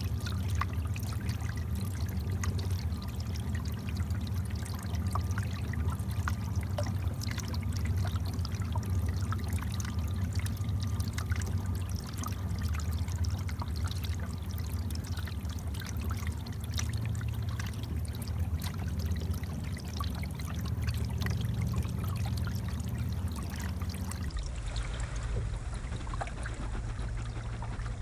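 Water trickling and lapping against a canoe's hull as it glides, over a steady low rumble. The sound changes abruptly near the end.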